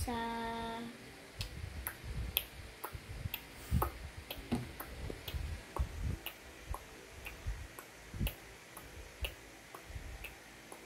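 A child's drawn-out hesitant 'uhh' in the first second, then faint clicks about two a second, unevenly spaced, with soft low thumps.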